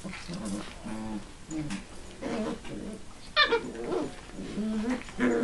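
Siberian husky puppies growling, whining and yipping as they wrestle in play, with a loud, high yelp falling in pitch about three and a half seconds in.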